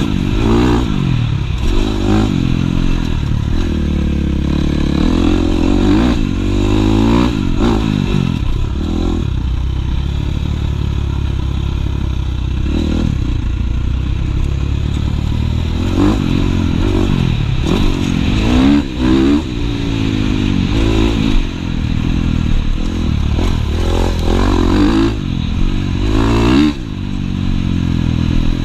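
Husqvarna FC450 four-stroke single-cylinder dirt bike engine under hard riding, revving up and dropping back again and again as the rider throttles, shifts and brakes along the trail, with a steadier stretch in the middle. Rush of wind and rattle of the bike over rough ground throughout.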